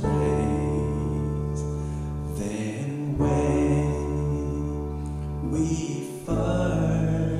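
A man singing a slow hymn to his own grand piano accompaniment, with sustained chords changing about every three seconds.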